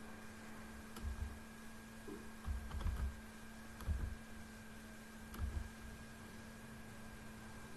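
Computer keyboard and mouse clicking a few times, with dull knocks on the desk, over a steady electrical hum.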